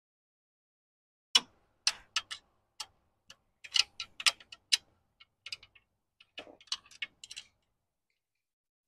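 A metal wrench clicking and tapping against a nut and bracket on a tractor's pedal linkage: a string of irregular sharp clicks that starts about a second and a half in and stops near the end.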